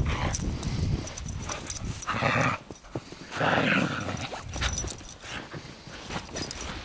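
Siberian husky playing in snow, giving two short play growls about two and three and a half seconds in, among the crunch and scuffle of paws in snow.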